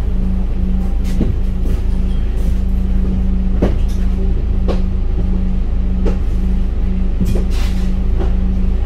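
Scania K310UD double-decker bus heard on board: its 9-litre five-cylinder diesel runs with a steady low rumble and an even hum, while body panels and fittings rattle with sharp knocks every second or so.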